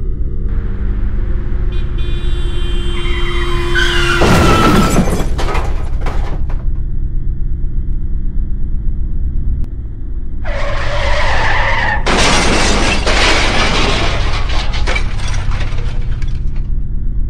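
Car-crash sound effects over a low rumbling drone. About three seconds in, tyres screech with a falling pitch and end in a crash. About ten seconds in, a second screech gives way to several seconds of crashing and shattering glass.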